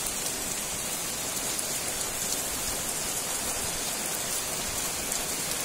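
Rain falling steadily: an even hiss of many drops, unchanging throughout.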